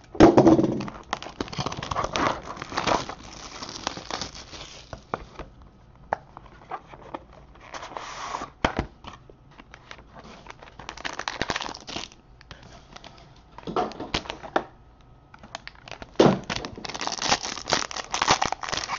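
Trading card packaging handled and opened by hand: intermittent rustling and scraping of a gold-bar-shaped card box. Near the end comes a dense run of crinkling as a gold foil card pack is torn open.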